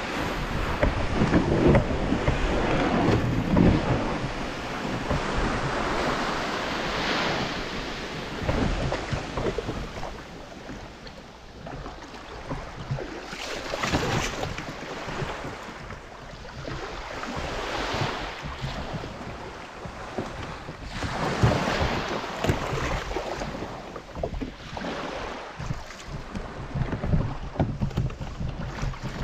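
Small waves washing in and out at the shore, with wind gusting on the microphone.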